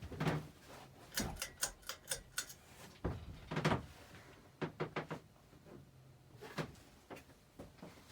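Fasco Charleston ceiling fan running on low speed, with a faint low hum and irregular clicks and light knocks, some in a quick cluster and others singly.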